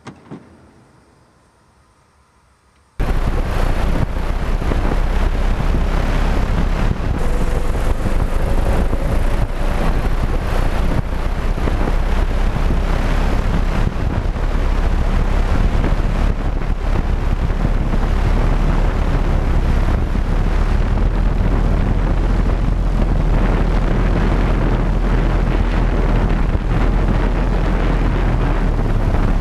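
Volocopter VC200's eighteen electric rotors running in flight: a loud, steady rush of rotor noise with a heavy low rumble of downwash buffeting the microphone. It starts abruptly about three seconds in, after near quiet with a few light clicks.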